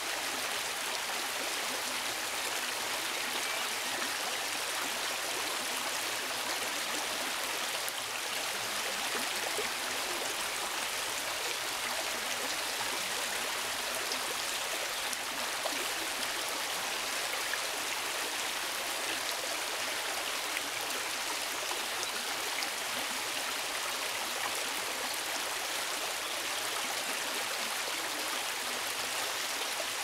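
Shallow river running over stones and gravel: a steady, even rush and babble of water.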